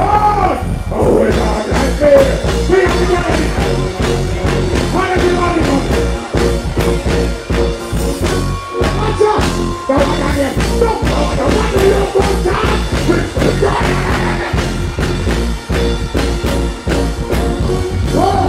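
Live reggae band music through a concert PA: heavy bass and a steady drum beat, with a vocalist singing over it.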